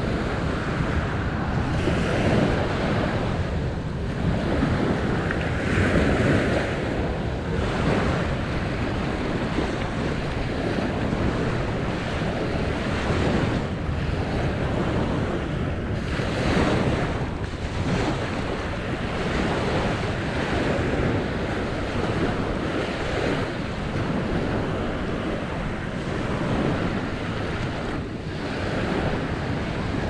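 Beach ambience: waves washing on the shore, rising and falling every few seconds, with wind buffeting the microphone.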